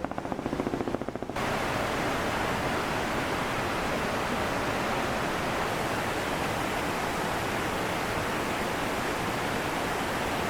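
Iguazu Falls: the steady rush of a large waterfall, a dense even roar of falling water that starts abruptly about a second and a half in. Before it comes a brief rapid buzzing.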